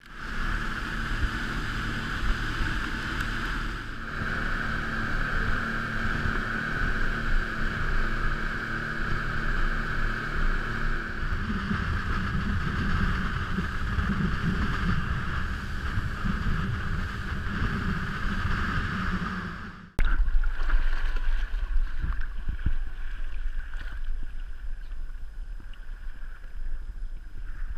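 Boat's motor running steadily underway, with water rushing along the hull and wind on the microphone. After a sudden cut about twenty seconds in, wind buffets the microphone and water sloshes against the hull.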